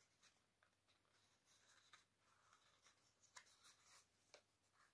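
Very faint rustling and crinkling of a folded paper boat handled in the hands, with a few soft crackles, the clearest about three and a half seconds in.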